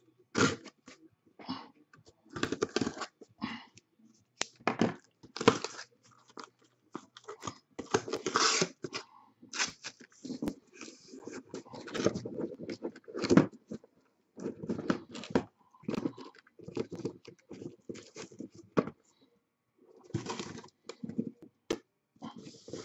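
A cardboard shipping case being pulled open and handled, with the trading-card boxes inside slid out and stacked: a run of irregular cardboard scrapes, rustles and knocks.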